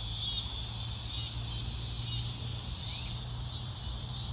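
Loud chorus of insects calling from the vegetation, a continuous high shrill that pulses about once a second.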